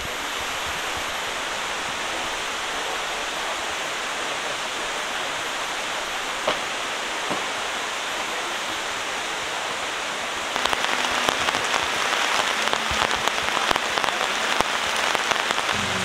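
Steady rushing water noise, then about ten and a half seconds in, rain sets in harder: louder, with a dense patter of drops striking a surface.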